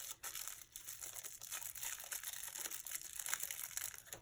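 Packaging crinkling as the parts of a new shower head are handled and unpacked: faint, irregular crackles throughout.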